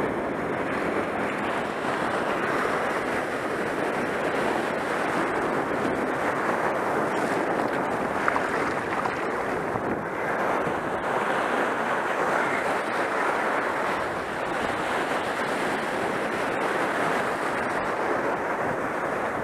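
Shallow surf breaking and washing over sand in a steady rush of water, with wind buffeting the microphone.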